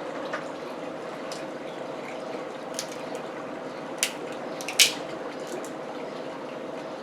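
Close-miked eating sounds: a few short, wet clicks and smacks of chewing, the loudest just before five seconds in, over a steady background hum.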